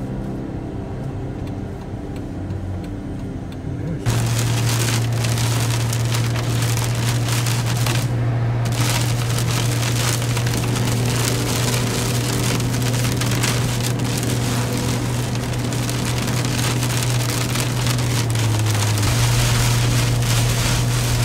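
Inside a moving truck, a steady engine and road hum. About four seconds in it gives way suddenly to heavy wind-driven rain pelting the windshield and body, a dense hiss over a steady low drone.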